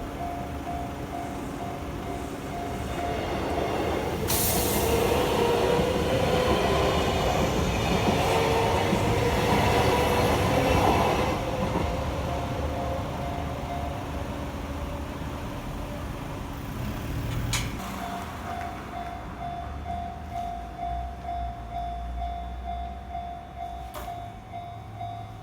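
Japanese level-crossing alarm bell ringing in a steady rapid pulse while a Kintetsu electric train passes through the crossing. The train's wheels and running gear are loudest a few seconds in, with a whine that rises slowly in pitch. The bell rings on after the train has gone by.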